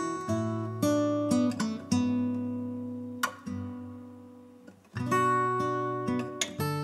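Acoustic guitar background music: strummed chords left to ring, with one chord dying almost away before the next strum about five seconds in.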